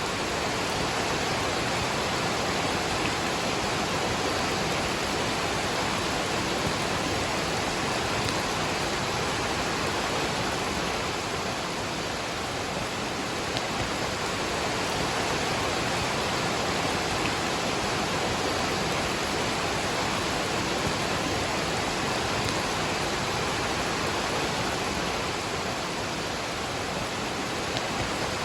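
Waterfall rushing in a steady, even roar of falling water, with rain falling and a few faint drop ticks.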